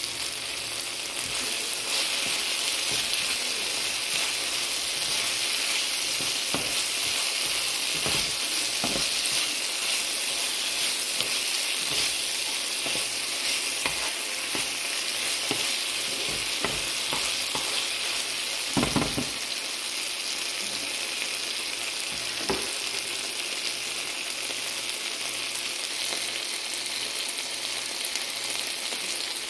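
Beef, onions and green bell peppers sizzling steadily as they fry in a pan, with a spatula stirring and scraping through them now and then; the loudest knocks of the spatula come a little past the middle.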